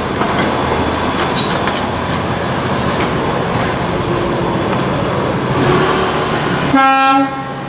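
Loud, steady rumble of passing urban traffic or rail. Near the end a short pitched tone sounds for about half a second, and then the rumble drops off.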